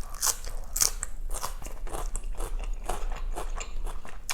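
Close-miked chewing of crunchy shredded green papaya salad: a quick, irregular run of crisp crunches as the mouthful is bitten and chewed.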